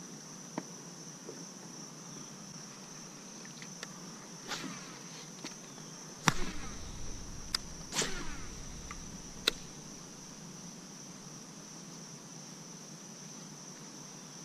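Steady, high-pitched chorus of crickets or other singing insects along the riverbank, broken by a few sharp clicks and knocks, the loudest about six and eight seconds in.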